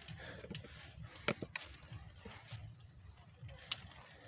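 Mountain bike rattling as it is ridden, with irregular sharp clicks and knocks over a low rumble; two louder knocks come about a second in and near the end.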